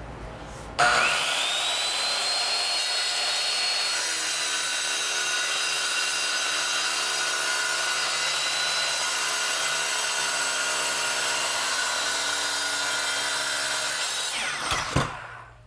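Bosch circular saw fitted with a diamond tile blade starting about a second in, its whine rising quickly to full speed, then running with a steady high whine as it cuts through ceramic tile. Near the end it is switched off and winds down with a falling whine.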